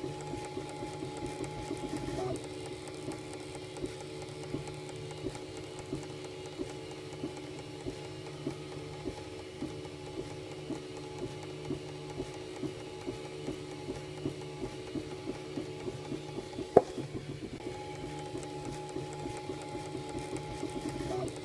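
Ultimaker 2 3D printer's filament feeder ticking regularly, a little over once a second, over the printer's steady hum. There is one sharp, much louder click about three-quarters of the way through.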